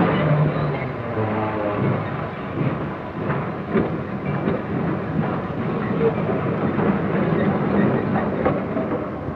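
Railroad freight train moving through a yard: the steady running noise of locomotive and rolling cars, with scattered metallic clanks a few seconds in.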